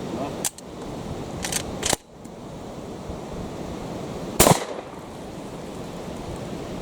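Gunshots at an outdoor range: sharp reports about half a second, a second and a half, and two seconds in, then a much louder shot about four and a half seconds in, over constant wind noise on the microphone.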